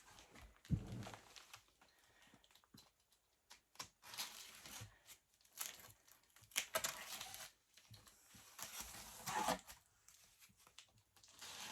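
Intermittent rustling and crinkling of plastic-wrapped cosmetic packages being handled and sorted, with scattered light clicks and a soft thump about a second in.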